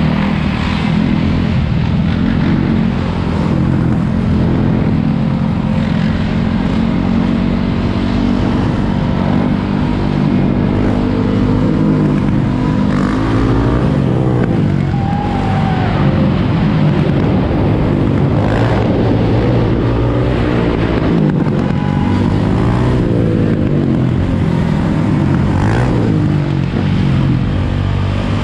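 Several quad ATV and dirt-bike engines running together in a moving pack, revving up and down in repeated rising and falling sweeps, most plainly around the middle and again later on.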